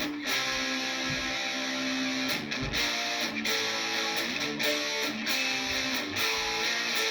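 Epiphone SG Modern electric guitar played with distortion through its bridge humbucker coil-split to single coil: a riff of struck chords with short stops between them.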